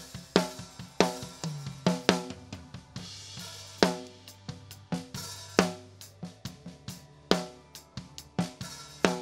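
Recorded drum kit playing a steady groove of kick, snare and hi-hat, with loud ringing snare hits about every second and three-quarters. A low bass note is held for a few seconds in the middle.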